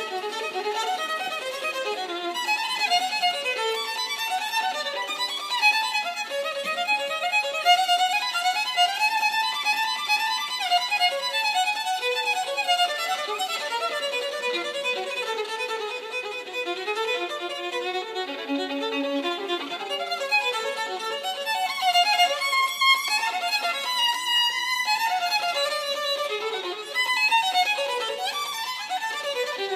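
Solo violin bowed throughout, playing a continuous melody with notes that change several times a second.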